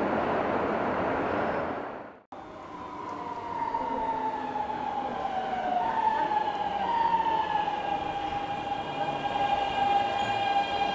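Keikyu 600-series electric train's Siemens GTO-VVVF inverter singing as it pulls away: a chain of whining tones that step in pitch like a musical scale, settling into a steady whine near the end. Before that, about two seconds of train noise echo in an underground station and fade out.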